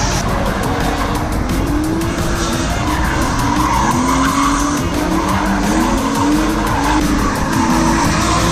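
Drift car engine revving up and down again and again as the car slides, with its rear tyres skidding and squealing.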